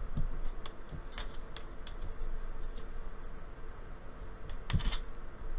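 Hands handling plastic slime containers and packaging: scattered light clicks and taps, with a louder short clatter near the end.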